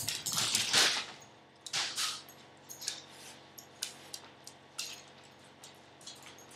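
A dog moving about in a wire crate around its bed: a few rustling bursts in the first two seconds, then scattered light metallic clinks and ticks.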